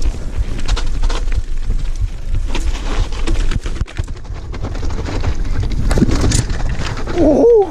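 Wind buffeting the microphone of a chin-mounted GoPro on an electric mountain bike ride, with a steady rumble and many quick knocks and rattles over rough ground. Near the end a rider lets out a wavering "oh".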